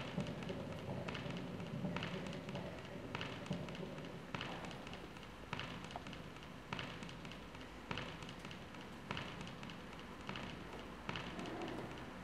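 Soft taps evenly spaced about once a second, like a slow tick, over a low steady hum.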